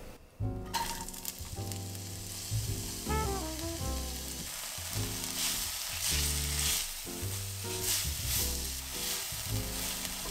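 Diced onion sizzling in hot oil in an enameled Dutch oven, starting about a second in after a brief drop. A silicone spatula stirs and scrapes it around the pot, mostly in the middle. Soft background music plays underneath.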